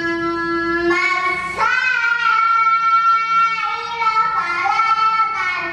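A young girl's voice chanting a Quran recitation from memory, in long held notes that change pitch every second or two.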